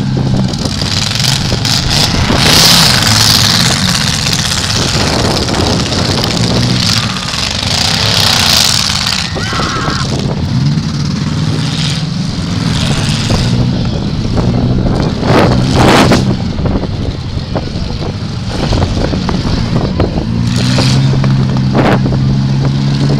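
Several full-size demolition derby cars' engines running and revving hard, their pitch rising and falling over a steady rumble. A few sharp bangs from cars colliding come about two thirds of the way through and again near the end.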